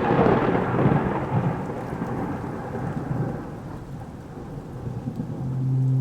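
Thunder rumbling and slowly dying away after a clap, with rain. About five seconds in, a steady low synth drone note comes in.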